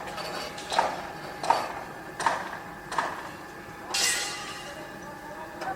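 Construction-site noise: a regular series of sharp metallic knocks, about one every 0.7 s, each with a short ring, over a steady machine hum. About four seconds in, a longer hissing scrape.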